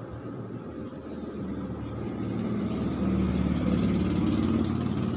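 An engine running steadily, growing louder about two seconds in and holding there.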